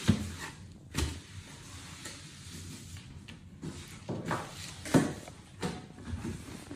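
Cardboard box and packaging handled as an air fryer is pulled out of its box: a series of knocks and scraping rustles, the loudest right at the start and about five seconds in.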